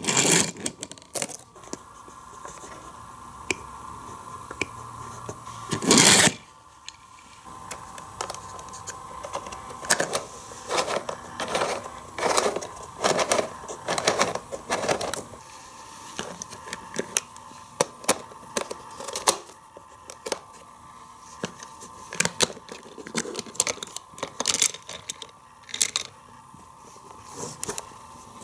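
Plastic clicks, rattles and scrapes of a Hot Wheels Race & Rinse car wash playset being worked with a die-cast car on its track and in its wash tower, with one louder knock about six seconds in.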